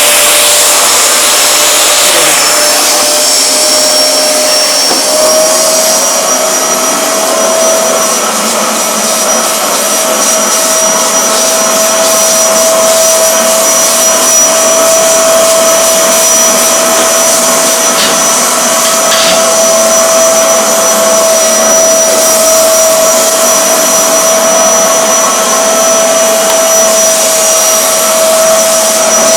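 Eureka Forbes Euroclean X-Force 1400-watt vacuum cleaner running steadily with a loud motor whine, which steps up slightly in pitch about five seconds in.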